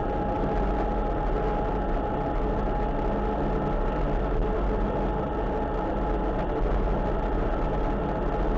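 Engine and drivetrain of a WWII-era military vehicle running steadily at cruising speed, heard on board together with road noise, with a constant whine over the drone.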